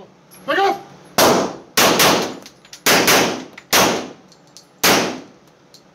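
ATI FXH-45 Moxie .45 ACP pistol firing seven shots, partly as quick double taps, each shot ringing off the walls of an indoor range. The pistol is fed 230-grain hollow points, standard and +P, and cycles every round without a stoppage.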